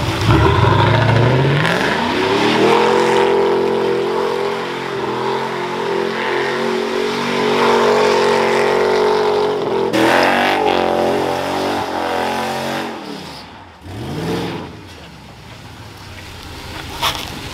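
Pickup truck engine revved up and held at high revs during a burnout, its rear tires spinning. The revs dip and climb again about ten seconds in, then drop away near the end with one short blip.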